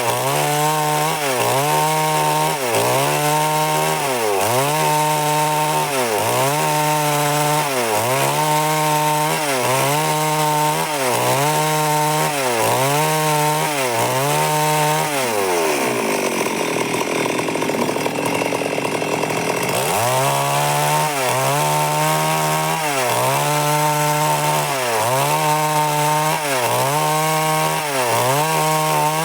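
Stihl MS 382 two-stroke chainsaw cutting wood at high revs, its pitch dipping and recovering about every second and a half. About halfway through the revs fall away for several seconds, then climb back up.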